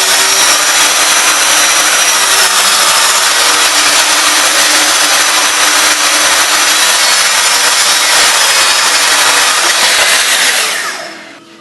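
Electric power tool running loud and steady while working wood, winding down near the end.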